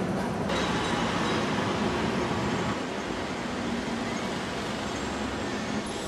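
Hong Kong MTR subway train and underground platform noise: a steady rumble and hiss.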